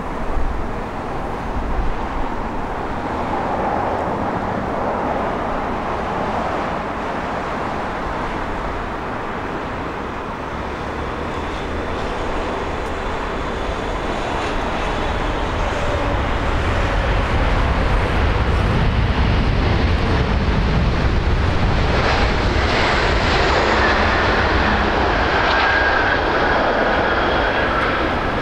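Boeing 777 jet airliner landing: steady jet-engine noise on the approach, growing louder with a deep rumble after touchdown, and a high whine joining in during the last few seconds as the engines spool up on the rollout.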